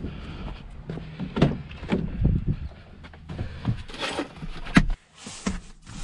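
Irregular knocks and clunks over a low rumble that cuts off suddenly about five seconds in.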